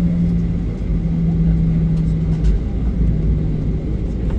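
Jet airliner's engines heard from inside the passenger cabin: a steady low rumble with a low hum that drops slightly in pitch about halfway through.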